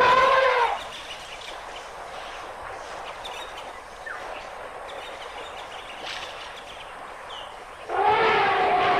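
African elephant trumpeting: a short blast right at the start and a longer, louder call about eight seconds in.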